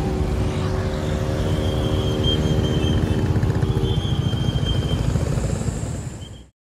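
Road traffic, mostly motorcycles with some cars, running over a level crossing. A steady hum stops about four seconds in, and the sound fades out near the end.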